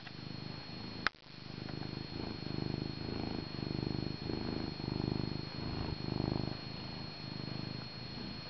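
Domestic cat purring close to the microphone, a fast low buzz that swells and fades with each breath in and out. A single sharp click about a second in.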